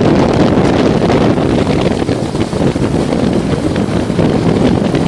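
Heavy wind buffeting the microphone, a loud steady rumble.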